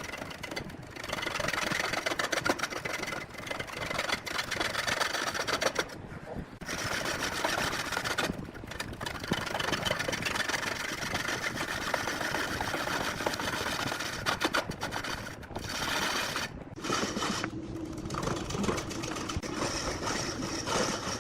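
Wood lathe running while a turning tool cuts into the spinning log: a dense rasping cutting noise, broken by several short gaps, with a steady motor hum under it near the end.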